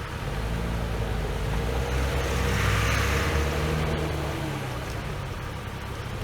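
Off-road vehicle's engine revving up, holding high revs for a couple of seconds, then easing off. A rushing hiss is loudest about three seconds in, at the peak of the revs.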